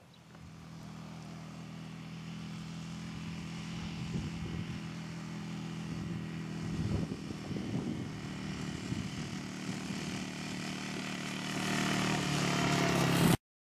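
Quad bike engine running steadily as the ATV drives across the field, growing louder as it comes closer, then cutting off suddenly near the end.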